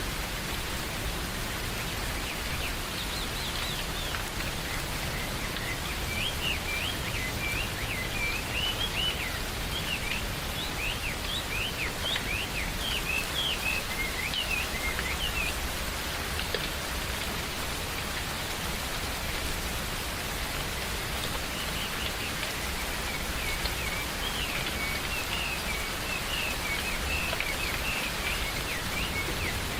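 Steady rain falling in a forest, with a bird chirping in quick runs of short notes through two spells, one in the first half and one near the end.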